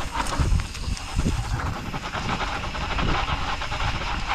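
Mountain bike riding fast down a rough dirt trail: tyres rumbling over the ground with uneven low knocks from the bumps, and wind rushing over the microphone.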